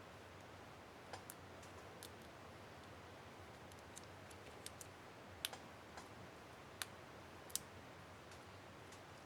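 Faint, irregular small plastic clicks, about a dozen, the three loudest a little past the middle: a laptop keyboard's Shift keycap and its plastic retainer clip being handled and snapped into place on an HP DV4-1000 keyboard.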